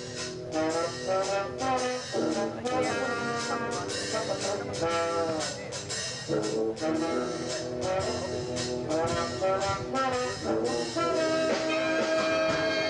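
Brass band music: trombones and trumpets playing a tune in phrases, with a long held note near the end.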